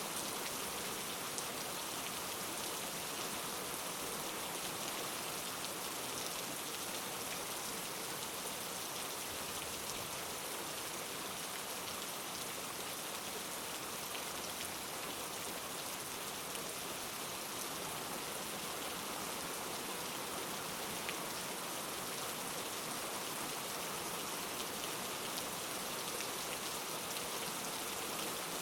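Steady rain falling on a surface, a constant even hiss with faint scattered drop ticks.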